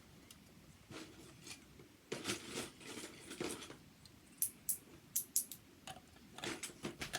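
Plastic Lego bricks being handled and sorted: rustling and rummaging, with a quick run of about five sharp clicks halfway through.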